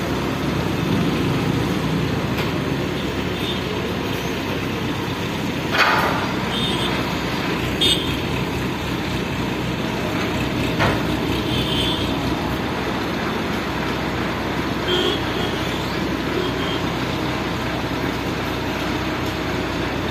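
A heavy vehicle engine running steadily, with a few brief sharp knocks, the loudest about six seconds in.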